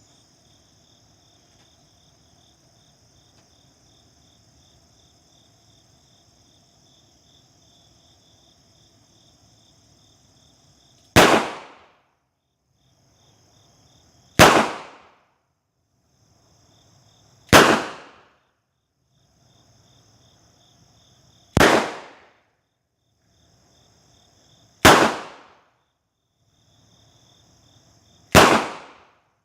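Smith & Wesson 686 revolver firing .38 Special +P rounds: six single shots, spaced about three seconds apart, starting about eleven seconds in. Crickets chirp steadily between the shots.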